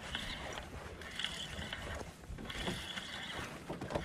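Fishing reel being wound in short spells, its gears whirring about every second and a half, as a hooked fish is brought up to the boat.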